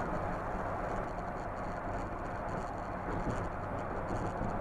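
Steady engine and road noise inside a moving car's cabin: an even low drone with no distinct events.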